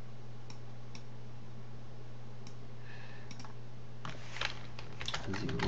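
Computer keyboard keystrokes and mouse clicks: a few isolated clicks, then a quick run of typing near the end, over a steady low electrical hum.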